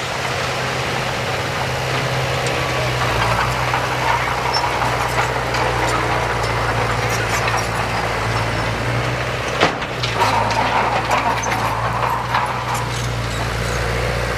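Heavy diesel earthmoving machine's engine running steadily, with a single sharp knock about ten seconds in.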